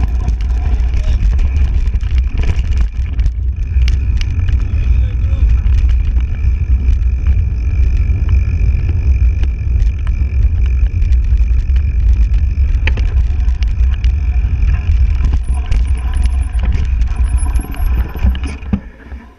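Wind rushing over the microphone of a mountain bike descending fast off-road, with tyre noise and rattles and clicks from the bike, plus a thin steady high whine through much of it. The noise drops away in the last second or so.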